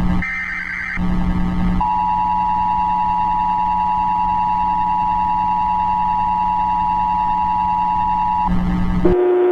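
A burst of shrill EAS (SAME) header data ends about a second in. After a short pause, the two-tone Emergency Alert System attention signal sounds steadily for about seven seconds and cuts off sharply, announcing a required monthly test. A low steady hum runs underneath, and a different single lower tone begins just before the end.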